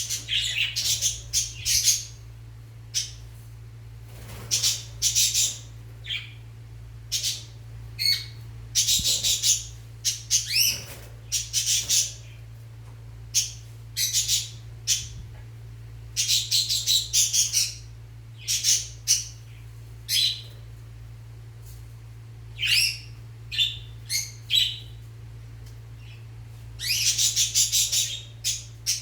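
Lovebirds chirping and squawking in short, shrill bursts that come irregularly, a few each second in places, over a faint steady low hum.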